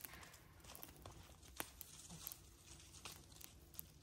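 Small wood fire in a metal fire bowl crackling faintly, with scattered sharp pops; the loudest comes about one and a half seconds in.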